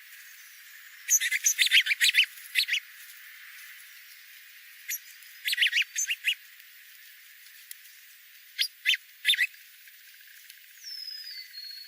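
Small songbirds chirping in three quick bursts of sharp, rapid chirps, with a single falling whistle near the end.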